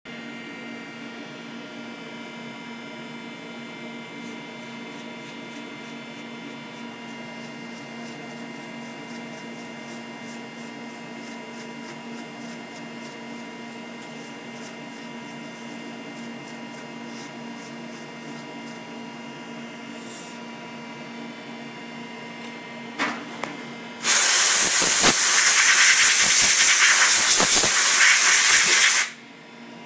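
CNC milling machine running, a steady hum made of several steady tones with faint regular ticking. About 24 seconds in, after two short clicks, a loud hiss starts and runs for about five seconds before cutting off suddenly.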